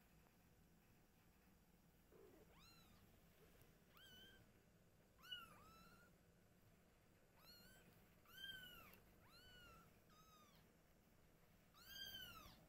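Kitten meowing over and over: short, high, arching mews, about nine of them, the loudest near the end.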